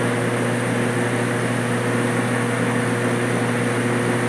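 Metal lathe running steadily with a motor and gear hum while a shear tool takes a very light cut on a mild-steel bar.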